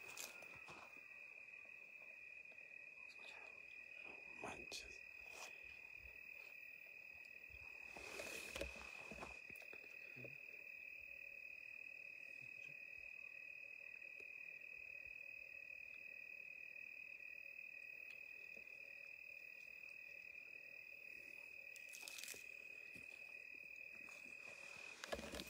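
Faint, steady high trill of crickets in the night, unbroken throughout, with a few soft rustles in the brush.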